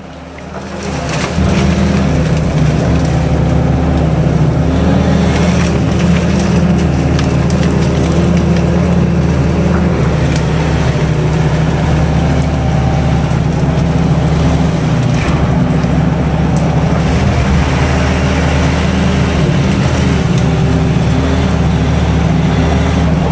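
Kato HD512E crawler excavator's diesel engine running steadily under load from inside the cab, swelling up about a second in as the hydraulics work. Faint scrapes and cracks come through as the bucket pushes through the brush.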